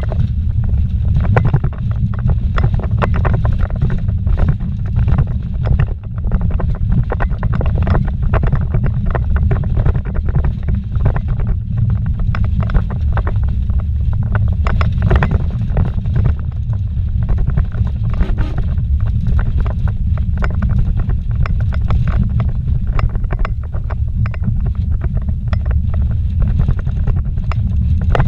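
Vehicle driving fast over a rough dirt road, heard from inside the cabin: a loud, steady low rumble of engine and tyres, with frequent short knocks and rattles.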